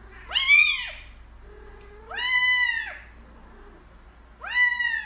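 Kitten meowing: three high-pitched mews, each rising and then falling in pitch, spaced about two seconds apart.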